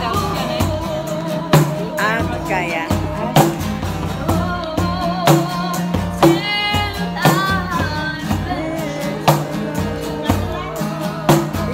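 Live acoustic band music: a woman singing over a strummed acoustic guitar and conga drums. The sharpest drum strikes come about every two seconds, with lighter hits between them.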